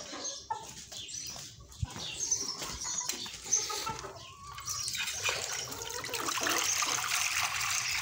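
Chickens clucking while they feed. About five seconds in, water starts pouring steadily from a plastic bucket into a shallow clay dish.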